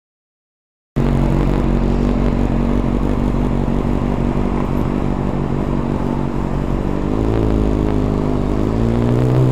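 A motor vehicle's engine running loudly after a sudden start about a second in, its pitch rising steadily in the last couple of seconds as it revs up.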